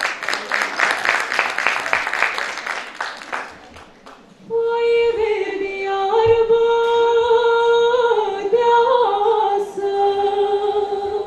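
Audience applause for the first three seconds or so. Then a teenage girl's solo voice begins a Romanian folk song, singing long held notes that step up and down in pitch.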